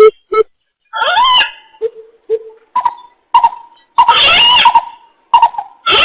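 Greater coucal (bìm bịp) calls played as a trapping lure. There are a few short deep hoots and short notes higher up, broken by a longer harsh rising call about a second in and a long harsh screech around four seconds in.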